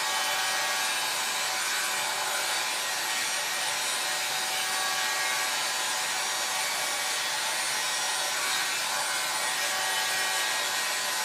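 Corded hot air styling brush blowing steadily at an even level while it is twirled through a beard.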